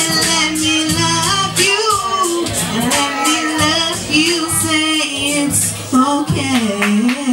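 A woman singing live into a microphone over a musical accompaniment with a steady low bass line.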